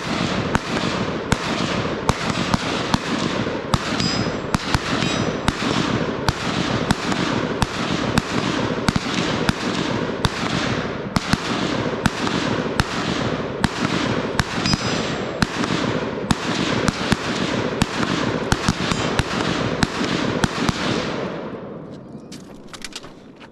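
Sustained gunfire: sharp shots about one and a half a second over a dense, continuous crackle of overlapping shots. It fades away near the end.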